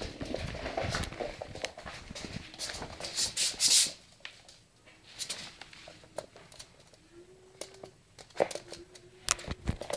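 Jack Russell puppy scampering on a wooden floor: scattered clicks and scuffs of its claws, a louder scuffling rush about three seconds in, and a couple of sharp knocks near the end.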